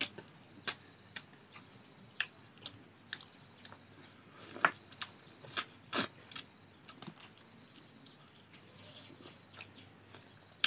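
Close-up eating sounds: irregular wet smacks, clicks and slurps of lips and teeth as ripe mango flesh is bitten and sucked off the skin, with a few louder smacks scattered through. A steady high thin whine, like a cricket, runs under it.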